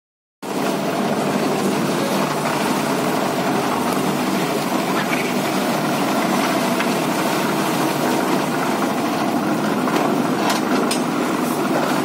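Engine-driven concrete mixer running steadily, its drum turning as aggregate is loaded, with a few sharp knocks near the end.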